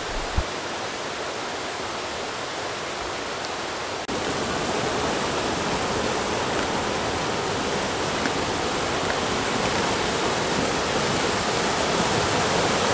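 Wimbach, an alpine mountain river, rushing over rocks and gravel: a steady whoosh of fast-flowing water, louder from about four seconds in.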